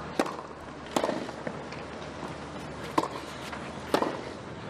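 Tennis rally on a grass court: sharp racket-on-ball hits, about one a second with a longer gap in the middle, over a steady background hush.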